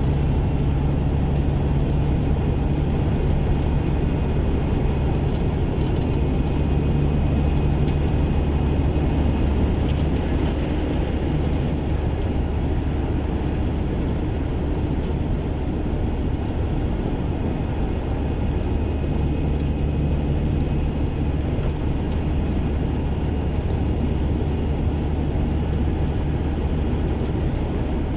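Cummins N14 inline-six diesel engine of a semi truck running steadily under way, a constant low drone. Its note changes slightly for about ten seconds in the middle.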